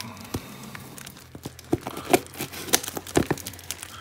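Plastic packing tape on a parcel crinkling and crackling as hands press and pick at it, in irregular sharp crackles that grow louder and more frequent in the second half.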